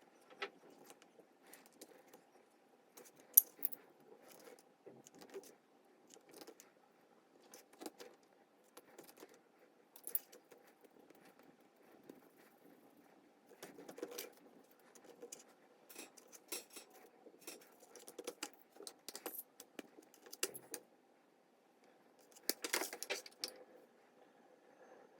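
Light kitchen handling sounds: scattered clinks and taps of utensils and dishes, with a denser clatter about 22 seconds in, over a faint steady hum.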